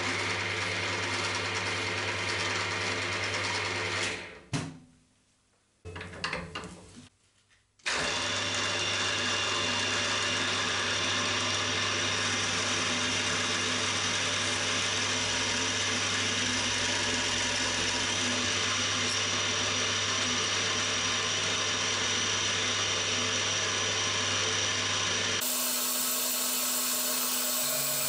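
Cormak ZX 7045 geared-head mill-drill running, its spindle cutting holes in an aluminium plate, with a steady gear whine and hum. The sound drops away about four seconds in and comes back just before eight seconds. It changes to a different, lower steady hum about 25 seconds in.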